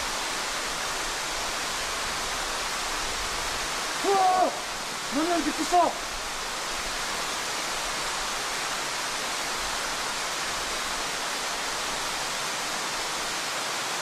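Waterfall rushing steadily and loudly, covering other sounds. Two short pitched calls rise above it about four and five seconds in.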